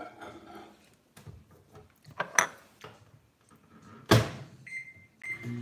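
Over-the-range microwave oven being worked by hand: a few clunks, the loudest about four seconds in as the door is shut, then a long keypad beep and a short one. Near the end it starts up with a steady low hum, set to run longer to reheat food that came out cold.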